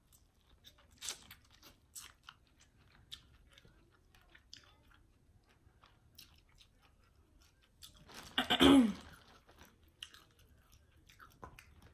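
Chewing and crunching of boiled seafood, with scattered soft clicks and smacks. A short, louder sound falling in pitch comes about eight and a half seconds in.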